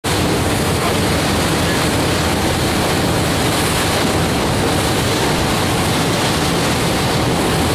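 Steady rush of wind on the microphone and water past a moving motorboat, with the boat's engine running underneath.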